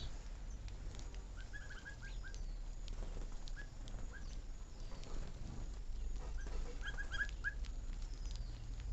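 Small birds chirping: two quick runs of about half a dozen short chirps each, with a couple of single chirps between them, over a steady low rumble.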